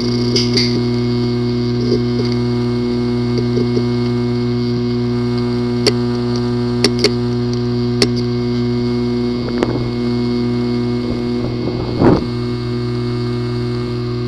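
Failing hard disk drive running with a steady hum, giving a few sharp clicks at uneven intervals and a louder knock near the end. The clicking is a symptom of a bad drive whose disk assembly may be physically damaged.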